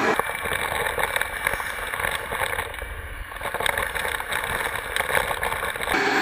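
Bee vacuum hose working close to the comb: a steady rushing of air with a low rumble and many small ticks throughout. It starts and stops abruptly at cuts, about the start and near the end.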